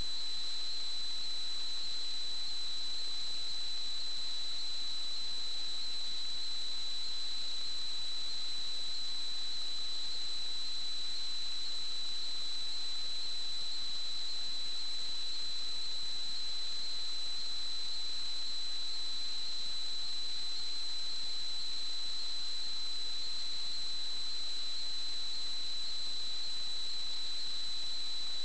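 Steady, unchanging high-pitched electronic tone over a constant hiss: noise and interference on the recording equipment's audio.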